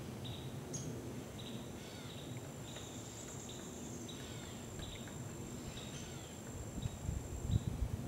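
Woodland ambience: short chirps repeat about every half second, and a high, thin steady insect buzz runs through the middle. Low rumbling noise grows near the end.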